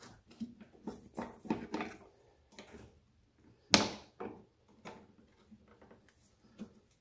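A plastic mower discharge chute and its steel torsion spring being worked into place by hand: a run of scrapes and light clicks, with one sharp click a little under four seconds in.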